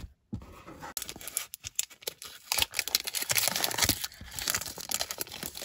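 Foil wrapper of a 1998-99 Topps Series 2 basketball card pack being torn open and crinkled in the hands: a dense crackling rip that starts about a quarter second in and is loudest in the middle.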